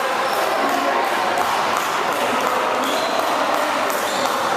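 Basketball being played on a gym court: a ball dribbling in a steady rhythm and sneakers squeaking briefly twice, near the end, over a hall full of background chatter.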